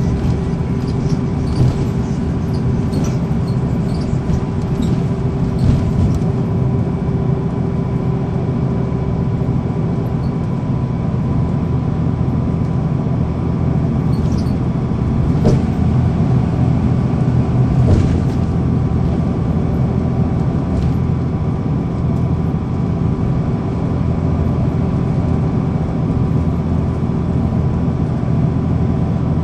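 Cummins ISL9 diesel engine of a 2009 NABI 416.15 transit bus running steadily, heard from inside the bus, with a few short clicks and rattles.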